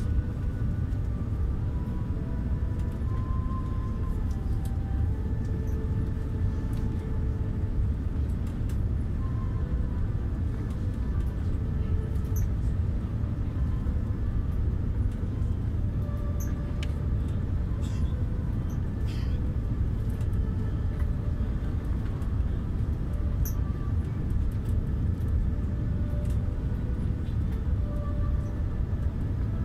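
Steady low rumble of airflow and engines heard inside the passenger cabin of an Airbus A380 descending on approach.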